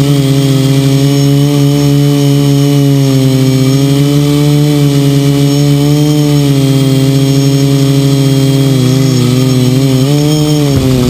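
Quadcopter's electric motors and propellers buzzing loudly, heard from the craft's own onboard camera. The pitch drifts up and down with throttle changes and wobbles more quickly near the end.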